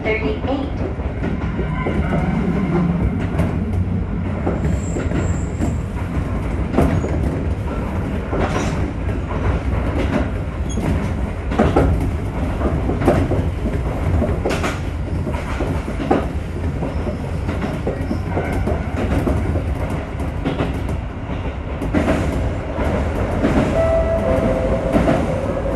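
Electric train running along its line, heard from the driver's cab: a steady rumble of wheels on rails, broken by irregular sharp clacks as the wheels pass rail joints. A brief steady tone sounds near the end.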